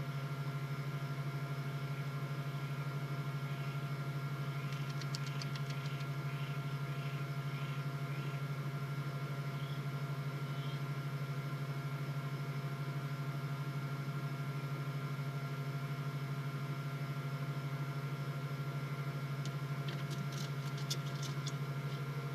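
Steady electrical hum with several fainter steady tones above it, the noise floor of a live nest-box camera's microphone. Short runs of faint scratchy clicks come about five seconds in and again near the end.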